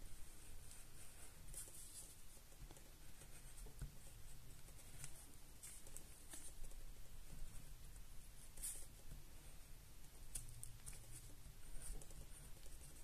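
Graphite pencil tracing firmly over the lines of a drawing on the back of a paper sheet: faint, irregular scratching strokes of the lead on paper.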